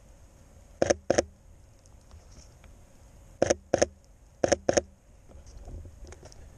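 Sony A7 III camera shutter firing six times, in three quick pairs of clicks about a second in, at about three and a half seconds and at about four and a half seconds.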